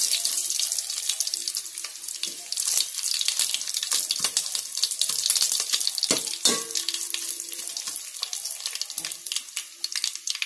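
Hot oil sizzling and crackling as garlic cloves, curry leaves and mustard and cumin seeds fry for a sambar tempering, with a metal spoon stirring and scraping the pot. It is the browning stage, frying until the garlic turns red-brown.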